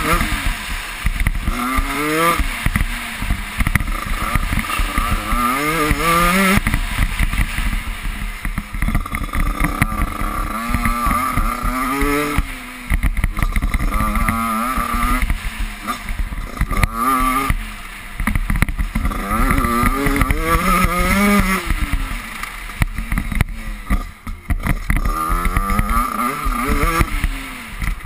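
Off-road motorcycle engine under hard riding, its pitch climbing again and again in short pulls and falling back between them as the throttle is opened and closed. Wind buffeting and knocks from the rough track are heard on the microphone.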